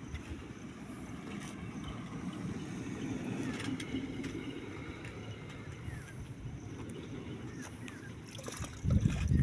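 Stream water running steadily, with a brief louder low knock near the end.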